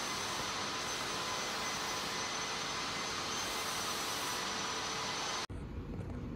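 Steady rushing machine noise with a thin high whine running through it. It cuts off abruptly about five and a half seconds in and gives way to a lower, rumbling shop-floor noise.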